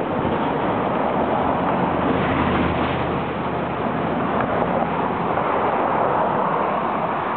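Long Island Rail Road M7 electric multiple-unit train rolling past, a steady rush of wheel and rail noise with a faint low hum.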